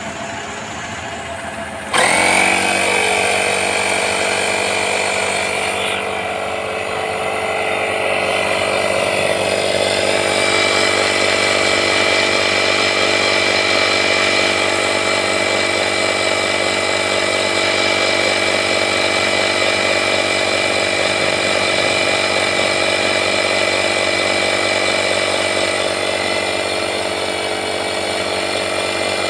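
AGARO 120 W portable digital tyre inflator's electric air compressor switching on about two seconds in and then running steadily as it pumps a car tyre from about 25 PSI up toward a preset 30.5 PSI.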